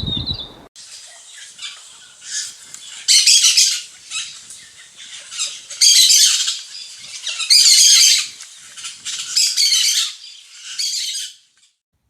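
Bird calls in a run of harsh, scratchy bursts, about six loud ones a second or two apart with softer chatter between, starting suddenly just under a second in and stopping shortly before the end.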